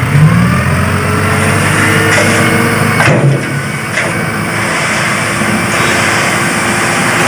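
A truck engine running steadily and loud, an even noisy hum with its weight low down, with no change in pitch.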